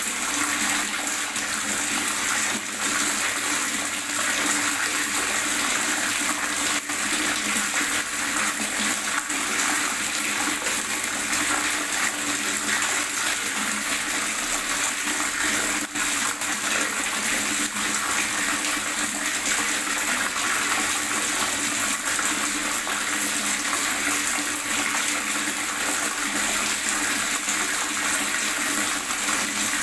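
Running water gurgling and splashing steadily, a continuous hiss of moving water with no breaks.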